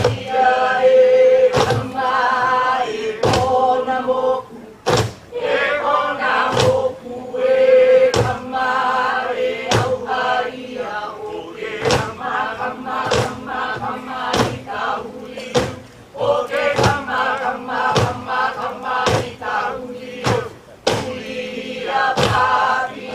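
Hawaiian hula chant sung on a steadily held, wavering pitch, accompanied by strikes on pahu drums every second or two.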